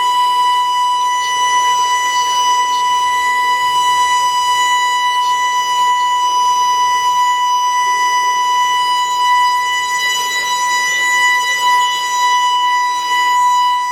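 Building evacuation alarm sounding one continuous, loud, high-pitched tone that holds steady without a break.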